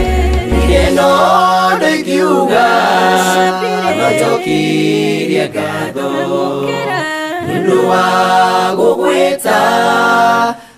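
Choir of voices singing a gospel song in harmony without instruments, with long held notes; a low bass underneath drops out about a second in, leaving the voices alone.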